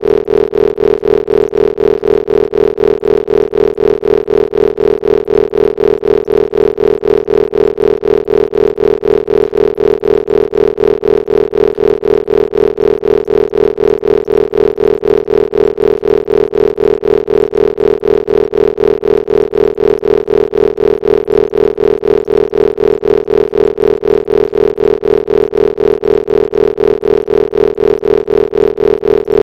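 Isochronic-tone brainwave entrainment audio: a steady synthesized tone that pulses on and off evenly several times a second, layered over lower steady tones.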